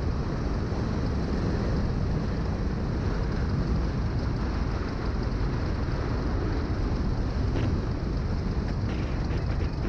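Light aircraft rolling out on the runway after touchdown, coasting down in speed: a steady, even noise heaviest in the low end, from the engine at low power and the airflow and tyres.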